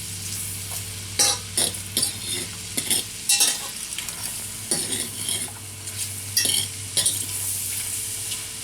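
Shrimp, melted butter, garlic and lemon zest sizzling in a frying pan while a utensil stirs them, scraping and clinking against the pan at irregular moments.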